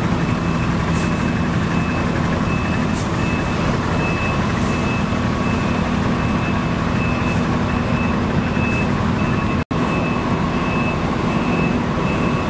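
Heavy truck's diesel engine running steadily under a repeating reversing-alarm beep, with a few short hisses now and then. The sound cuts out for an instant about ten seconds in.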